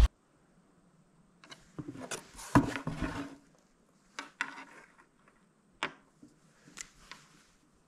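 Light knocks, rattles and scrapes from handling a round plate and marking it with a pen: a few seconds of rattling and scraping starting about a second and a half in, then three sharp single clicks.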